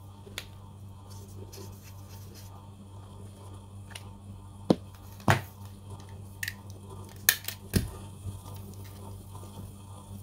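Handling noises as cloth and its wrapping are moved about: a handful of sharp clicks and knocks, the loudest about five seconds in, over a low steady hum.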